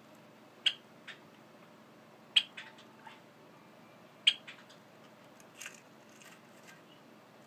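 Male pied Java sparrow in a wooden box nest giving short, sharp calls, four loud ones about two seconds apart with fainter ones between: threat calls of an angry bird guarding its nest.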